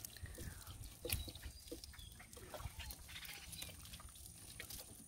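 Faint short animal calls over scattered small clicks and a low rumble.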